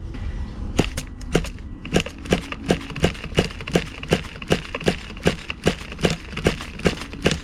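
Pull starter of a Team Associated Nitro TC3's .12 nitro engine worked in quick short pulls, a steady run of sharp clicks at about three or four a second, and the engine does not fire. The owner says the starter's one-way bearing slips.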